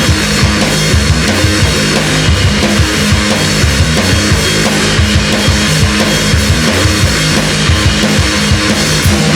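Live heavy rock band playing an instrumental passage: distorted guitars, bass and drum kit with a steady driving beat.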